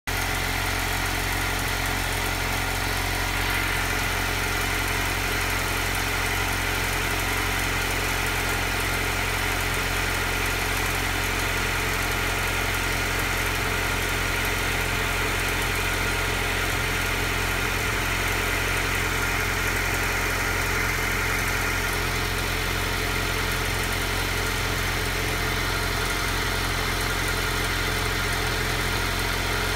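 Alfa Romeo Giulia engine idling steadily just after a cold start, with an idle the owner calls rough.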